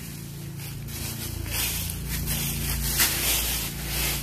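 Dry fallen leaves rustling and crunching in a few irregular surges, loudest between about one and a half and three seconds in.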